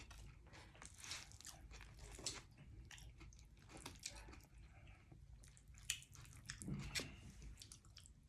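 Faint chewing and wet mouth sounds of a person eating a plate of liver, rice and gravy, with scattered small clicks and smacks.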